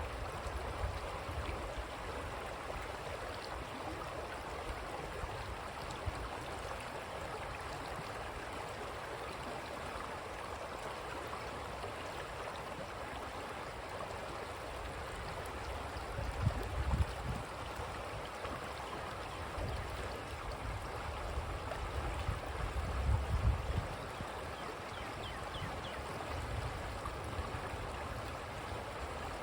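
Creek water flowing, a steady rushing and gurgling. Low rumbles come and go twice in the second half.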